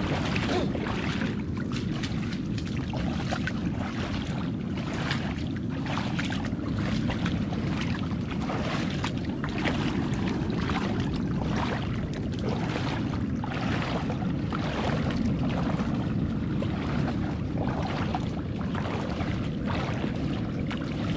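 A steady low rumble of wind and surf on the microphone, with frequent short splashes of feet wading through shallow water.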